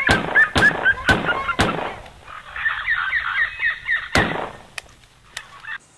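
Handgun shots: four sharp cracks in quick succession over the first second and a half, then another single shot about four seconds in, with two fainter shots after it.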